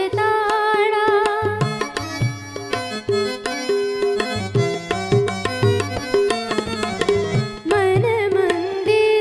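Gujarati devotional bhajan: an instrumental interlude of a quick melodic run on an electronic keyboard over a steady tabla rhythm. A boy's singing comes back in near the end.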